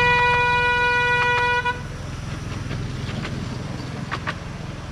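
Miniature railway locomotive's horn sounding one long steady toot of nearly two seconds, over the low steady running of an engine.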